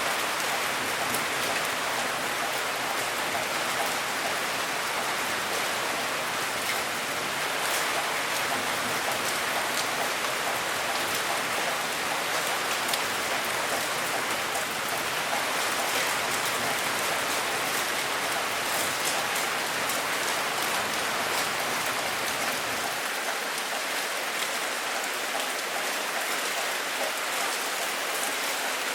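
Steady rain falling on a surface, an even hiss with scattered drop patters. The low rumble drops away about 23 seconds in, likely where the loop joins.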